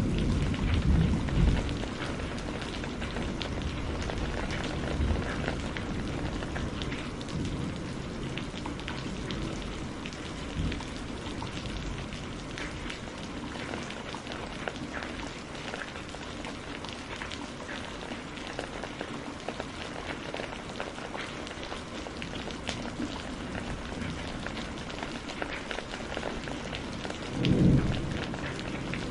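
Steady rain falling, with many fine drop ticks, under rolls of thunder: a loud low rumble fades away over the first couple of seconds, and another short rumble swells and dies near the end.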